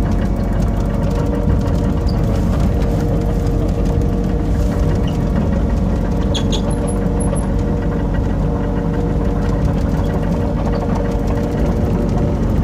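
Excavator engine running steadily under load, with an even, unchanging pitch, as the machine drives forward on its tracks pushing snow with its blade lowered.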